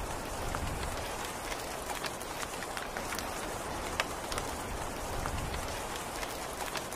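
Steady rain falling: an even hiss with scattered sharp drops ticking through it.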